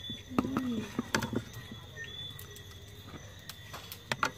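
Scattered light knocks and clicks over a faint, steady insect chirr, with a brief hum from a voice about half a second in.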